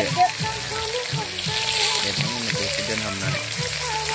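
Turmeric-coated fish pieces sizzling steadily as they shallow-fry in hot oil in a wok.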